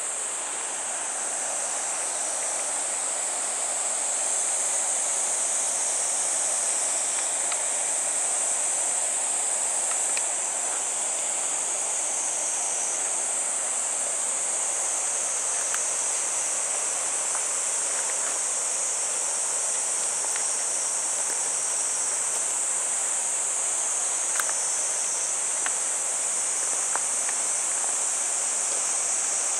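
Steady, high-pitched chorus of cicadas that runs unbroken, with a few faint clicks scattered through it.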